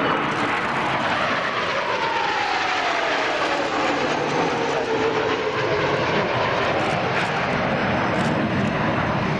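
Kawasaki T-4 jet trainers flying in a four-ship formation, their turbofan engines making a steady rushing jet noise. A whine slides down in pitch over the first half as they pass.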